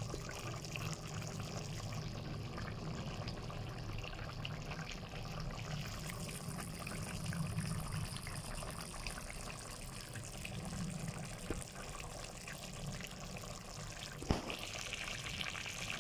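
Chicken pochero stew simmering in a pan, its sauce bubbling steadily. One sharp click comes near the end.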